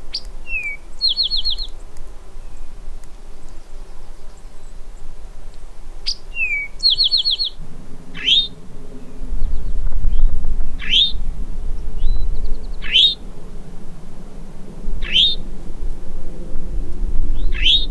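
Eastern towhee singing its drink-your-tea song, a high note, a lower note and a fast trill, twice. From about eight seconds in, five sharp high notes sliding downward follow, one every two and a half seconds or so, over a low rumble.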